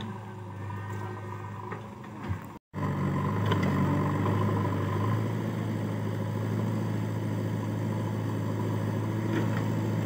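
JCB backhoe loader's diesel engine running steadily as it digs. The sound drops out for a moment about two and a half seconds in, and the engine is louder after that.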